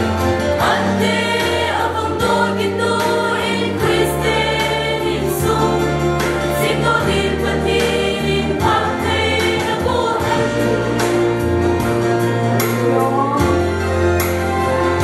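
Mixed choir of women and men singing together in sustained, held notes.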